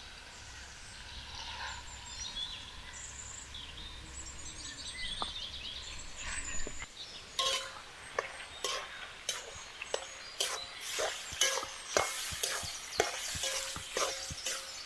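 Chicken pieces sizzling as they fry in hot oil in a pan. About halfway in, a ladle starts stirring them, with quick scraping clicks against the pan.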